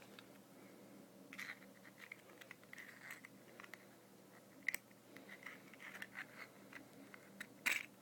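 Faint scratching and small clicks of metal tweezers pulling a new cotton wick through a Zippo lighter's insert, with a sharper click near the end.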